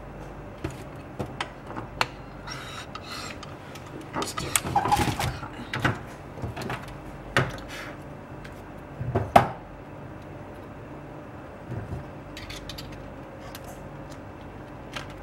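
Workbench handling noises: scattered clicks and taps, a short clatter of small parts about four to five seconds in, and one sharp knock a little after nine seconds, over a faint steady hum.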